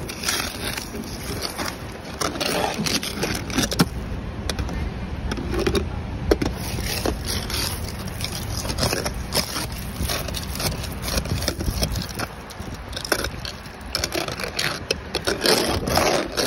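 Ice scraper and snow brush scraping and crunching the glaze of freezing-rain ice off a car, in a run of irregular strokes.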